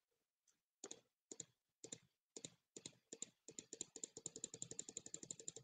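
Faint computer mouse clicks: a few separate clicks, some in quick pairs, then a fast run of about ten clicks a second from about three and a half seconds in, placing many points along a curve.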